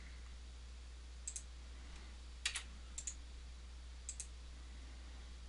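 Computer mouse clicking: four quick pairs of sharp clicks spread over a few seconds, over a steady low hum.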